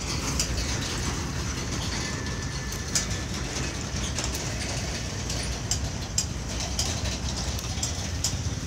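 Leafy wild plants rustling, with scattered small crackles and snaps, as greens are picked by hand among them, over a steady low rumble.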